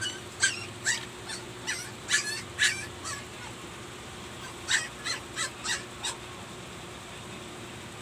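An animal calling: a run of short, sharp, high calls, about eight in the first three seconds, then a pause and five more about five seconds in.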